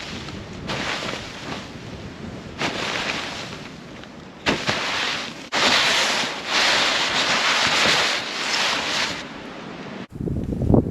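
Storm wind rushing in repeated gusts, the longest lasting several seconds. Near the end it cuts off abruptly and a different, lower rustling noise begins.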